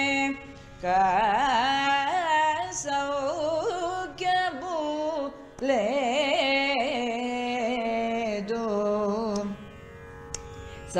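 Carnatic music in raga Shyama: a melodic line with oscillating, gliding ornaments over a steady drone, going quieter near the end.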